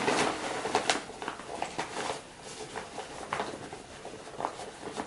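Handling sounds of an Apeks drysuit inflator valve being unscrewed by hand from the suit: the drysuit fabric rustles, with scattered small clicks from the valve.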